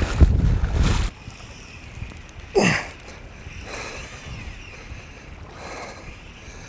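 Wind noise on the microphone and water splashing around a wading angler, cutting off about a second in. Then a quieter stretch of breeze and water, with a man's short falling groan about two and a half seconds in.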